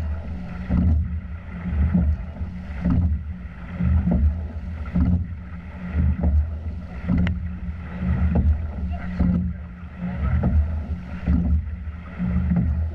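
Double scull under way at about 28 strokes a minute: knocks of the oars and rigging come about once a second, twice per stroke, over the steady rush of water along the hull.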